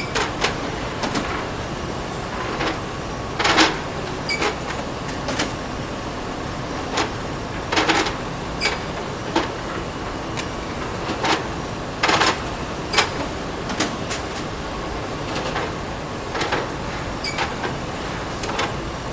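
Plate-making machinery running with a steady hum, broken by irregular clanks and knocks about once a second, a few louder ones ringing briefly.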